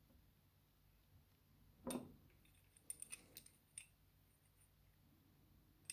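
A knock about two seconds in, then a few light metallic clicks and taps as tweezers handle the small steel springs and pins of a dismantled dimple lock cylinder.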